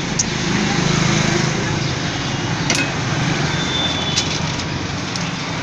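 Street traffic noise: a steady hum of passing motor vehicles, strongest in the first second and a half, with a few light clicks.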